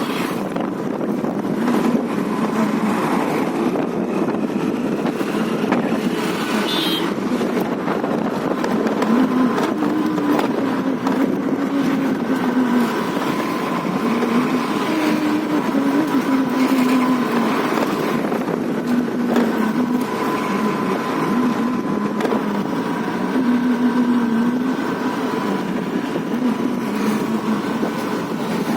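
Single-cylinder 125 cc scooter engine running while riding, its pitch rising and falling a little with the throttle.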